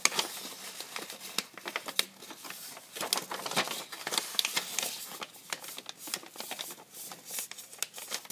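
A sheet of paper being folded and creased into a paper airplane: irregular crinkling and crackling with many small sharp clicks.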